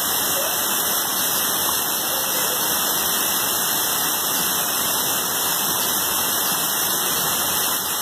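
Steady rushing of a waterfall and its stream, an even hiss of falling water with no breaks.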